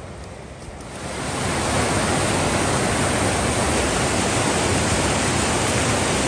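French Broad River rapids: whitewater rushing over a rocky ledge. The sound swells in about a second in and then holds as a loud, steady rush.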